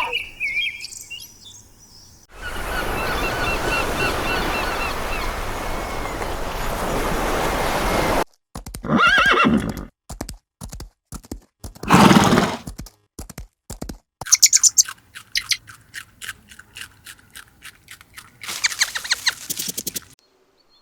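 A horse whinnying, twice, between a stretch of steady rushing noise and a run of quick clicks.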